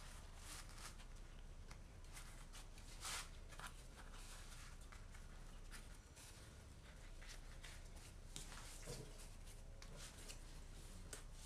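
Thin lavash flatbread rustling and scraping faintly as hands fold it and roll it up over a bamboo mat, in short irregular rustles, the loudest about three seconds in.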